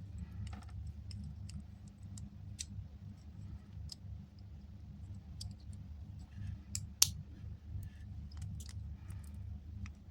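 Small scattered clicks and taps of plastic parts and tools being handled during close-up work on an AirPod, as the earbud housing is pressed back together. One sharper, louder click comes about 7 seconds in, over a steady low hum.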